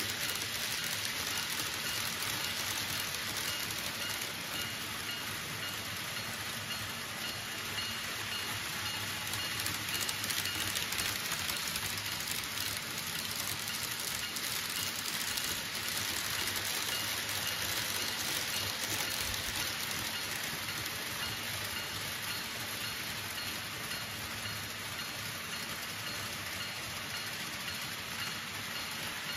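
Several model trains running on the layout's track: a steady rattling hiss of small metal wheels on the rails, with a faint high-pitched whine.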